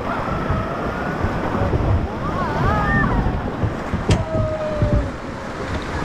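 River rapids rushing around an inflatable raft, with wind buffeting the microphone, as a steady rush of water noise. Rafters' voices cut in now and then with drawn-out calls that waver up and down in pitch.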